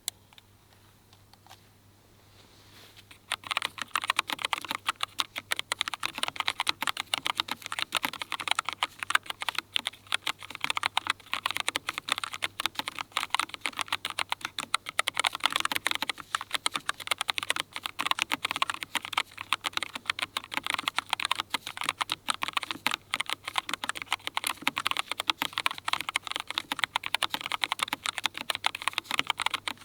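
Fast, continuous typing on a Keychron K1 Ultra 8K low-profile mechanical keyboard with Milk-POM Red linear switches. The typing starts about three seconds in, after a near-quiet start.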